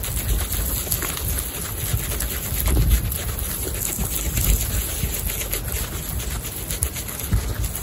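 Baby guinea pigs munching chopped fresh grass close up: a dense run of small crunching clicks and rustling. A few low thumps sound underneath, the loudest about three seconds in.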